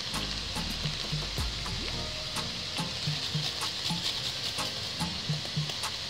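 Carrot being rasped on a flat metal hand grater, a run of short scraping strokes over a steady hiss.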